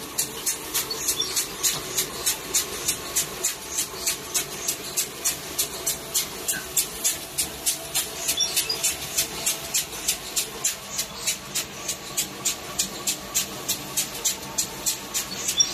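An automatic light-inspection machine for eye-drop bottles running, with a steady, even clicking of about four clicks a second over a mechanical hiss and hum as its star wheels and turrets index the bottles through.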